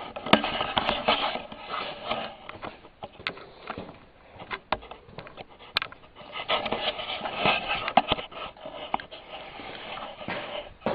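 Movement and handling noise: irregular rustling and scraping with scattered knocks and clicks, as of someone walking around with a handheld camera and brushing past things, busiest near the start and again past the middle.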